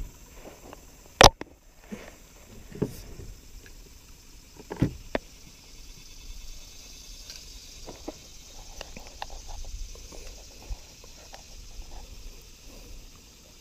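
Knocks and clatter of a landing net and fishing rod against a plastic kayak as a bass is netted and brought aboard. A sharp knock about a second in is the loudest, with a few more thuds over the next few seconds and lighter clicks after.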